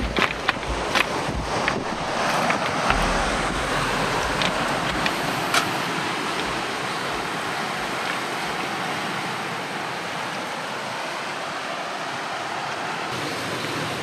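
Sea surf washing on a cobblestone beach, a steady rushing hiss. In the first few seconds there are several sharp clicks and a low rumble of wind on the microphone.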